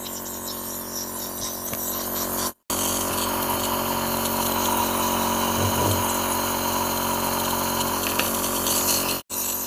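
Electric compressor nebulizer running: a steady motor hum under a hiss of air and mist through the mask. The sound cuts out briefly twice and is louder after the first break.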